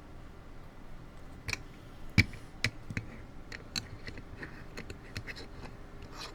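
Lock pick and tension wrench working the pins of a small 5-pin brass padlock, giving a dozen or so irregular sharp metallic clicks and ticks, the loudest about two seconds in.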